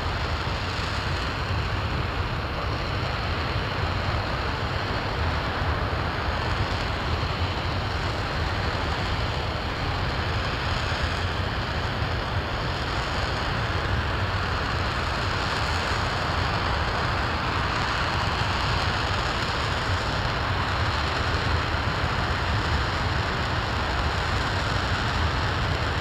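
RS-25 liquid-hydrogen/liquid-oxygen rocket engine firing at steady thrust during a long-duration hot-fire test: a dense, unbroken rushing noise with a strong low rumble and no change in pitch or level.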